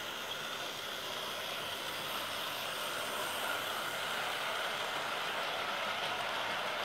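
Model diesel locomotive hauling a line of container wagons past on its track: a steady rushing whir of small wheels on the rails and the locomotive's motor, growing a little louder over the first few seconds.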